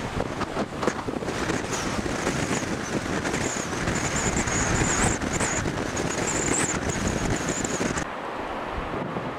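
Wind buffeting the microphone over the rush of rough surf breaking on the shore, with a thin high whistle wavering above it. About eight seconds in it cuts abruptly to a quieter, steadier rush.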